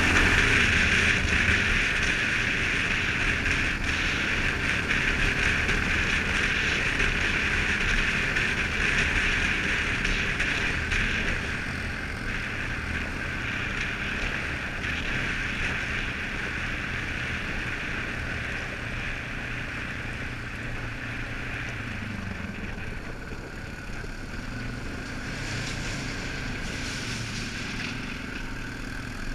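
Suzuki KingQuad ATV engine running steadily while riding a gravel trail, under a steady rush of wind on the microphone and tyre noise. The whole sound eases off a little about halfway through.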